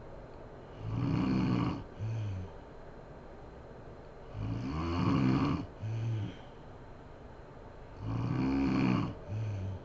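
A sleeping woman snoring in a steady rhythm: three long snores about three and a half seconds apart, each followed a moment later by a shorter snore.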